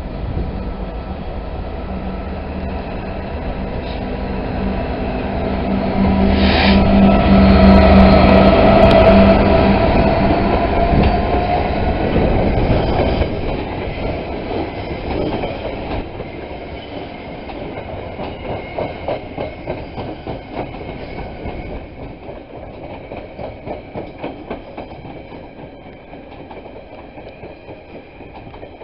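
Class 66 diesel locomotive passing close with its engine running, loudest about eight seconds in, followed by a long train of loaded container flat wagons rolling by, their wheels clicking rhythmically over the rail joints as the sound slowly fades.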